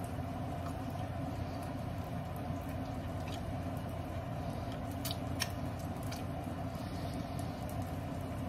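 A person biting into and chewing a juicy cheeseburger, faint under a steady background hum, with a few soft clicks between about three and five and a half seconds in.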